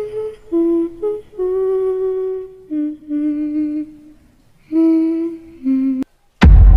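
A voice humming a slow, lullaby-like tune in single held notes with short breaks between them. About six seconds in it cuts off abruptly, and after a moment of silence a sudden, very loud noise with a heavy low end bursts in.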